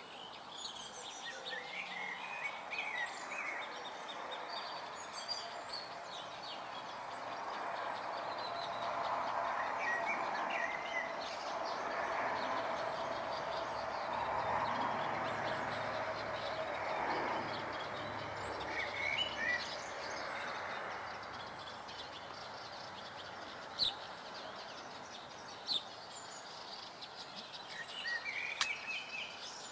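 Small birds chirping in short bursts every few seconds over a steady rushing background noise that swells through the middle and fades again. A few sharp clicks near the end.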